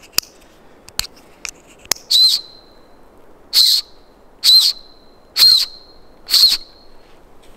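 A small plastic emergency whistle built into a paracord bracelet's buckle, blown in five short, shrill, high-pitched blasts about a second apart, each with a brief ringing tail; it is really powerful. Before the blasts come a few light clicks from the buckle being handled.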